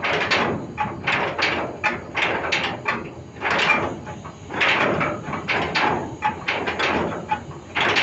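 Ship's anchor chain running out during anchoring: a rapid, irregular clanking and rattling of heavy metal links, with now and then a short metallic ring.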